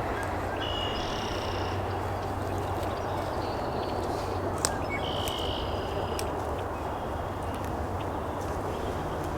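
Steady outdoor background noise with a bird calling twice in short high notes, and a few sharp camera shutter clicks, the loudest about halfway through.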